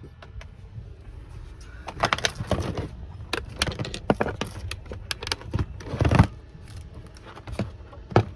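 Irregular clatter of clicks, knocks and a jangle, as of equipment being handled, over a steady low rumble; the knocks start about two seconds in and the heaviest comes about six seconds in.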